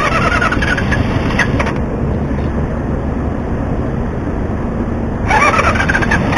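CB1 motorcycle engine running with a steady low rumble, revved up briefly at the start and again near the end, its pitch rising with each rev.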